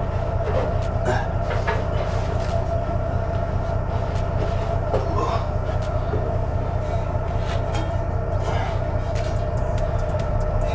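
Heavy diesel engine running steadily, a low even pulse with a faint steady whine and scattered metallic clicks and rattles.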